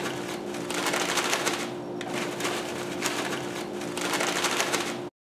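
Crinkling and rustling of a foil potato-chip bag being handled, a dense run of small irregular crackles over a steady low hum. The sound cuts out abruptly near the end.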